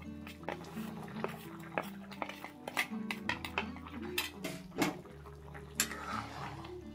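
A metal spoon clinking and scraping against a plate in a quick, irregular run of sharp taps as powdered spices are pushed off it into the pot. Background music plays underneath.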